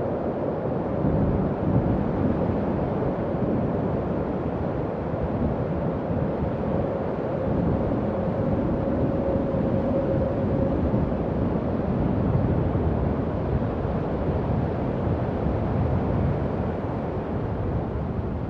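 Howling wind: a steady low rushing with a faint held moaning tone above it, which grows strongest about halfway through.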